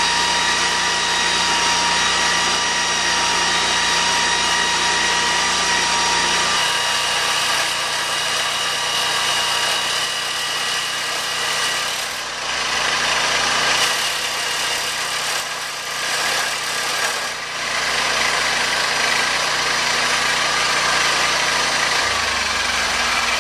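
Lucas Mill portable sawmill's engine running steadily as the mill saws a large slab from a log. The engine note shifts about six seconds in and again near the end, with a few brief dips in loudness in between.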